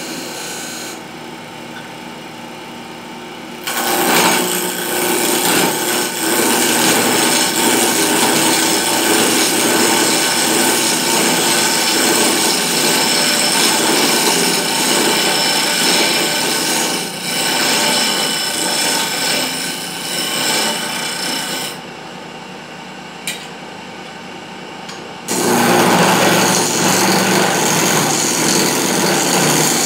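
Electric wood lathe running with a steady hum while a wooden spindle turns on it; from about four seconds in, a loud continuous rasping as the spinning wood is worked by hand. The rasping stops for about three seconds in the last third, leaving only the motor hum and one click, then resumes.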